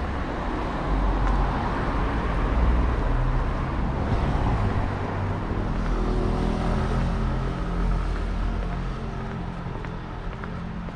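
Road traffic noise on a residential street: car and engine noise going by, a little louder for several seconds after the start, with a steady low hum joining about halfway through.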